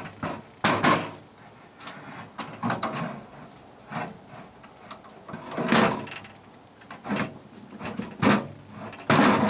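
A battery being slid into a Hugo battery backup unit: a series of sliding scrapes and knocks, spaced irregularly, several of them sharp and loud.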